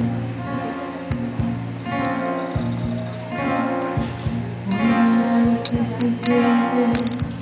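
Acoustic guitar strummed live in a steady rhythm, about two strokes a second.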